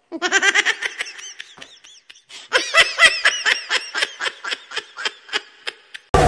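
Laughter: a run of quick, pitched 'ha-ha' bursts that fades after about two seconds. After a short pause, a second, longer run slows down and fades out.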